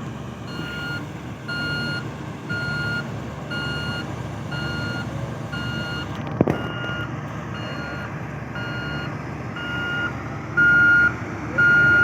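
A heavy construction vehicle's reversing alarm beeping steadily at about one and a half beeps a second over the low rumble of its diesel engine, growing much louder near the end. A single sharp knock about halfway through.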